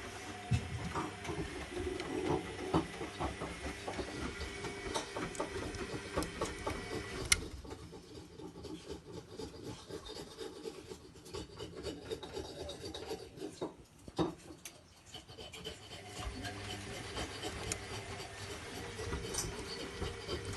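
Zanussi Lindo 100 washing machine tumbling its load on a cottons 40 wash: the drum turns with a motor hum and the rubbing of laundry, stops after a sharp click about seven seconds in, stays quieter for about eight seconds, then turns again.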